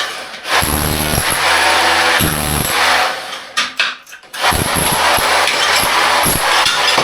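A power tool running in long stretches with a steady hum, cutting out briefly just after the start and again for about a second in the middle.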